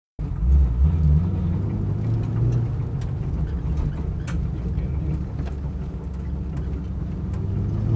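V8 Holden Commodore race car engine running at low, fairly steady revs, with a few light clicks.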